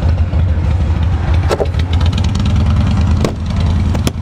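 A vehicle engine idling with a steady low rumble, with a few sharp clicks and taps from handling a motorcycle's luggage, two of them close together near the end.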